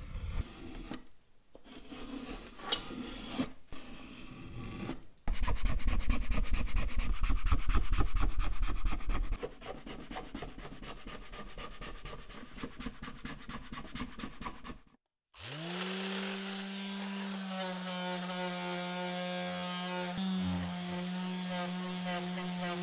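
Hand-abrading work on a workpiece: irregular rubbing and scraping strokes, then a few seconds of loud, fast, even strokes that ease into softer ones. After a sudden cut, a small electric motor spins up to a steady hum whose pitch shifts about three-quarters of the way through.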